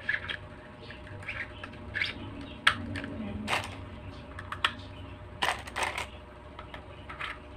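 Plastic ice candy mould being handled: its pink plastic stick-lids are worked out of and back into the mould, giving irregular sharp clicks and short squeaks of plastic rubbing on plastic. The loudest click comes a little under three seconds in, with a cluster of clicks about five and a half seconds in.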